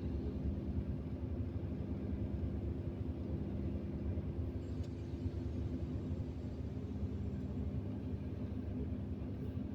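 Excavator's diesel engine running with a steady low rumble and hum; the hum fades somewhat in the middle and comes back strongly near the end.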